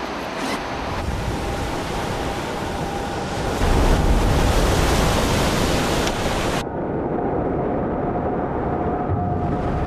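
Ocean surf with a large wave breaking, loudest from about three and a half seconds in. About six and a half seconds in the sound turns suddenly dull and muffled, as heard from underwater, and it opens up again near the end.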